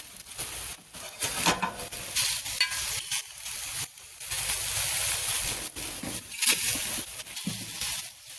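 Food sizzling on hot grill grates, the hiss surging and dropping away in short breaks as pieces are moved.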